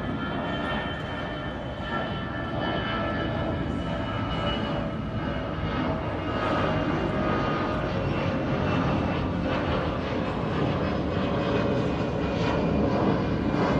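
Airbus A320-214's CFM56 turbofan engines climbing out after takeoff: a steady jet roar with a high whine of several tones over it, growing slightly louder near the end.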